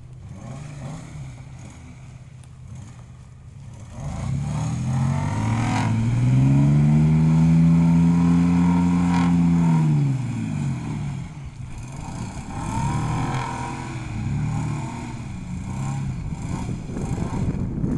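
Vehicle engine revving hard while a stuck SUV is pulled out of mud on a tow strap. Low engine sound at first; about four seconds in, the engine rises, holds at high revs for about four seconds and falls away, then comes several shorter revs.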